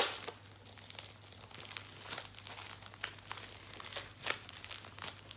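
A white padded mailer envelope being handled and opened: crinkling and rustling with scattered crackles, and a sharp snap right at the start.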